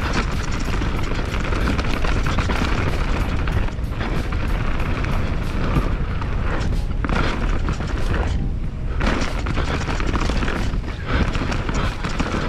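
Wind rumble on an action camera's microphone and the clatter of a YT Jeffsy full-suspension enduro mountain bike descending a rough trail at speed, ridden on a tyre that has punctured. Music plays underneath.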